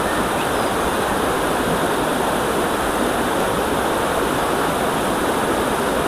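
Shallow river water flowing steadily over a small riffle.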